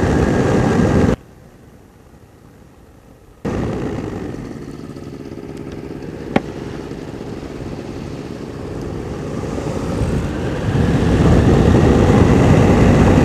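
Ultralight aircraft's two-stroke engine and rushing wind in flight. The sound drops away abruptly about a second in, returns some two seconds later as a steady engine hum with a single sharp click in the middle, and the wind noise builds up loud toward the end.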